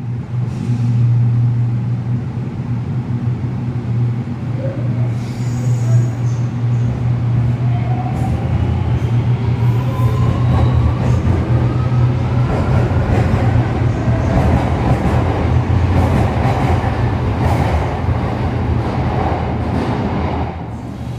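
Shenzhen Metro Line 1 train, built by CNR Changchun, pulling out of an underground station. Its traction motors give a whine that rises in pitch as it accelerates, over the rumble of its wheels on the track and a steady low hum.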